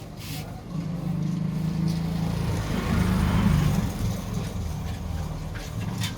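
A motor vehicle's engine passing close by on the street, growing louder to a peak about three seconds in and then fading.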